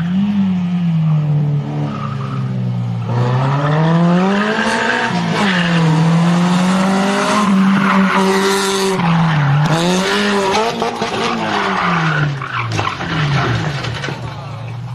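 Rally car engine revved hard, its pitch climbing and dropping again and again as it accelerates and shifts. Tyres skid and squeal about eight seconds in as the car slides sideways.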